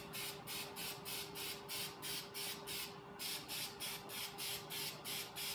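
Aerosol spray can of satin paint hissing in short, rapid puffs, about four a second, with a brief pause about three seconds in: light mist coats laid on thin so the paint doesn't fisheye over the chrome.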